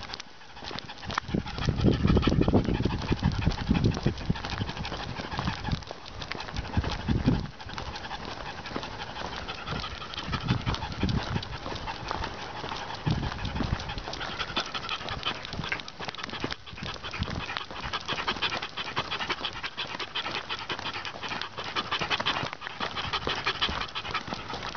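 French bulldog panting rapidly while trotting on a leash, its feet tapping on the pavement. Louder low rumbling runs through roughly the first seven seconds.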